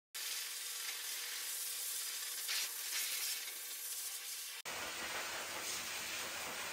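High-velocity dog dryer (blaster) blowing a steady hiss of air through its hose nozzle, drying a dog's wet coat. The sound breaks off briefly just before five seconds in.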